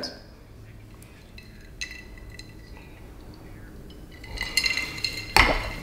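A drinking glass clinking with short ringing taps about two seconds in, then drinking sounds and a knock near the end.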